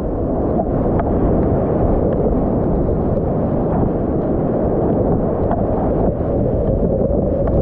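Steady, loud, deep rushing of whitewater, with a few faint knocks.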